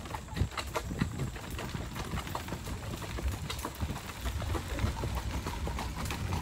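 Horse's hooves clip-clopping as it pulls an Amish buggy, with many irregular clicks over the steady low rumble of the buggy's wheels on a gravel lane.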